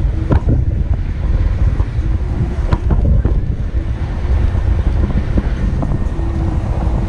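Wind buffeting the microphone as a loud, steady low rumble, with scattered knocks through it.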